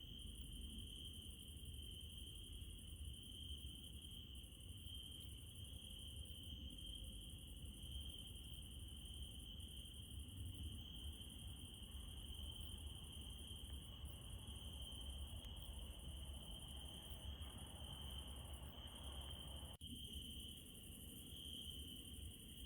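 Crickets trilling in a steady, unbroken chorus at night, faint, over a low rumble, with a brief drop in the sound about twenty seconds in.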